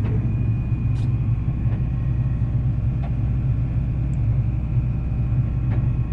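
Steady low engine drone of a John Deere 9510 combine, heard inside its cab, with a faint steady high whine above it and a few light ticks.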